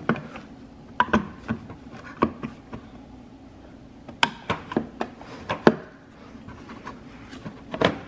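Hard plastic clicks and knocks from a BMW E46 corner light (front turn-signal unit) being worked and pressed into its slot beside the headlight, its tabs seating into the headlight housing. The clicks come irregularly, the sharpest a little past halfway and near the end.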